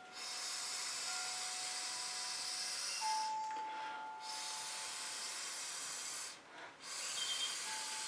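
Breath blown through a straw onto wet fluid acrylic paint to push it across the canvas, a steady airy hiss. One long blow of about six seconds, a short pause for breath, then a second blow.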